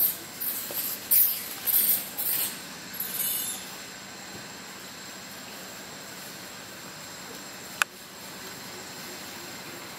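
Dry leaf litter rustling in several short bursts over the first few seconds. Then a steady faint hiss with a thin high steady tone, and a single sharp click near the end.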